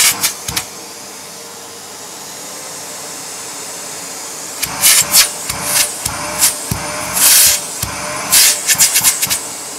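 AEG PowerForce bagged cylinder vacuum cleaner running with a steady hum that slowly grows louder as its power dial is turned up. From about halfway, a series of loud rushing, sucking bursts as a hand is held over the open end of the wand and pulled away, the motor's pitch shifting as the airflow is blocked and let go.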